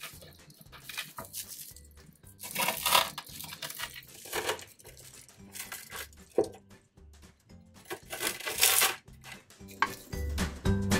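A crisp baked quinoa-and-seed cracker sheet crunching and crackling as a mezzaluna rocks through it, cutting it into chips, in three bursts. Soft background music plays under it.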